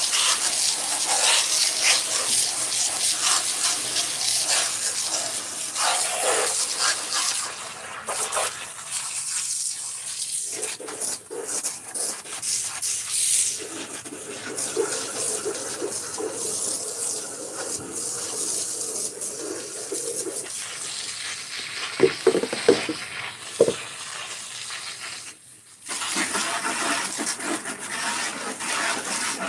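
Water jetting from a garden hose spray nozzle onto a plastic lawnmower deck and wet concrete: a steady, hissing spray whose sound shifts as the jet is moved around. It stops for a moment near the end.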